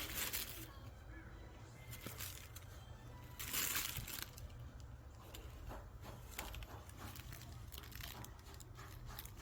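Rustling and crinkling handling noises with scattered short crackles and clicks, a louder rustle about three and a half seconds in.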